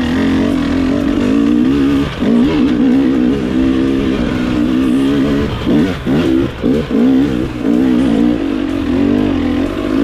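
Dirt bike engine revving hard under load on a steep rocky climb. The revs rise and fall with the throttle, dropping briefly about two seconds in and again around six to seven seconds before surging back.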